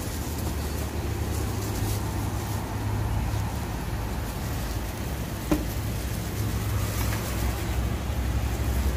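Steady low background rumble, with one sharp click about five and a half seconds in.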